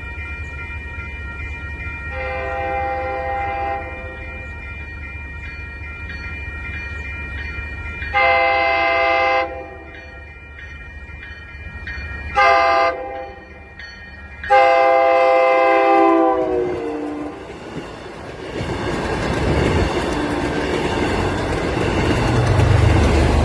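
MBTA commuter rail cab car's multi-note horn sounding the grade-crossing pattern: long, long, short, long, the last blast dropping in pitch as the train goes by. The passing train then follows, a loud rush and rumble of wheels on rail that grows toward the end.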